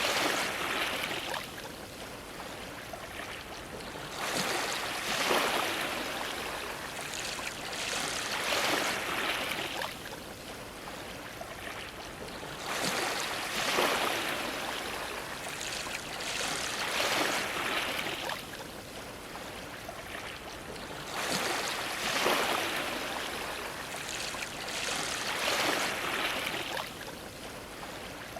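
Ocean waves washing against a dock. About seven surges of splashing water come in roughly every four seconds, each swelling up and then falling away.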